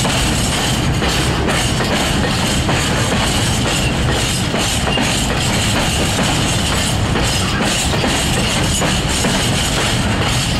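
Empty open-top freight wagons rolling past close by: a loud, steady rumble and rattle of steel wheels on the rails, with irregular clanks from the bogies and rail joints.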